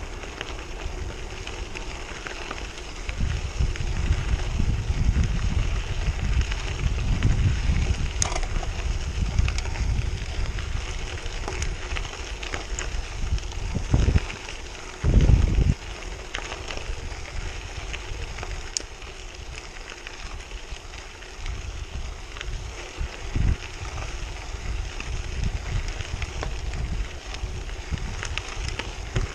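Bicycle tyres crunching and crackling over a gravel road, with wind buffeting the microphone in gusts of low rumble. Two short, loud thumps come about halfway through.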